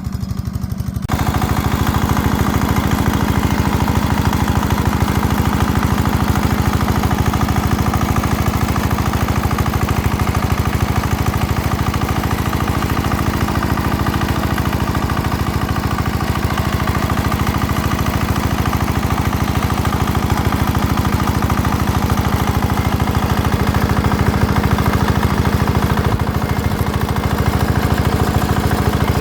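MT180 mini tractor's 7.5 HP single-cylinder diesel engine running steadily with a fast, even knock; it gets louder about a second in and then holds steady.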